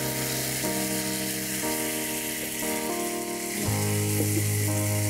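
Thick onion-and-curd spice gravy sizzling in a non-stick kadai as it is stirred with a spatula, with background music of sustained notes that change about once a second.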